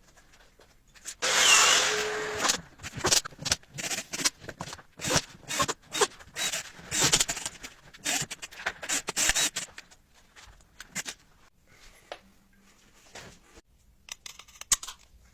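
Irregular scraping, rubbing and knocking of tools being worked. There is one loud rasping burst about a second in, then many short scrapes and knocks, which thin out after about ten seconds.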